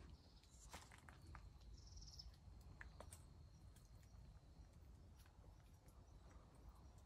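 Near silence: faint outdoor ambience with a few soft clicks and rustles, and a brief faint high chirp about two seconds in.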